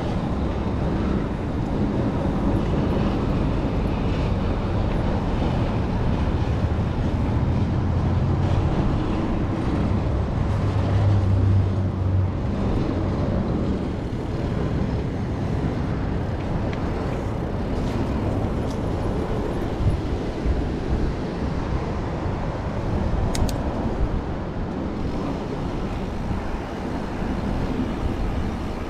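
Steady low rushing noise picked up by a GoPro on a moving mountain bike: wind and road noise, with passing traffic, swelling for a few seconds about ten seconds in.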